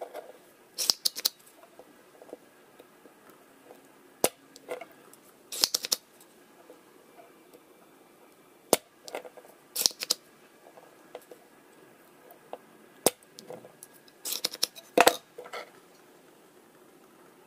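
Spring-loaded desoldering pump being cocked and fired to suck molten solder off a circuit board's header pins: sharp plastic snaps and clicks. A single click is followed a second or so later by a louder cluster of snaps, three times over.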